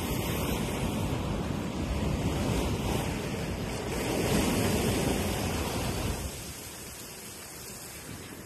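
Sea surf washing against a rock ledge below, with wind buffeting the microphone; the rush eases off about six seconds in.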